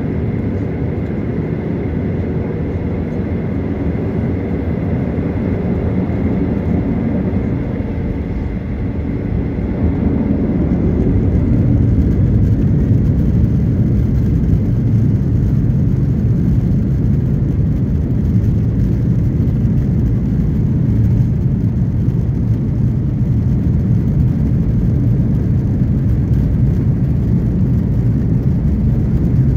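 Boeing 737-900ER's CFM56-7B jet engines running at taxi power, heard from the cabin over the wing as a steady low rumble. It grows louder about ten seconds in and stays at that level.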